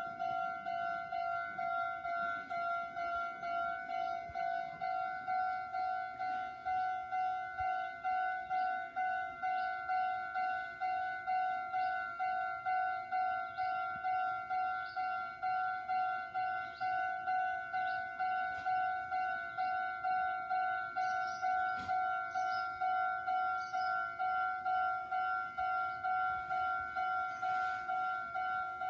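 Japanese electronic railway level-crossing warning bell ringing in an even, rapid rhythm, just under two rings a second, each ring a pitched ding with a higher overtone.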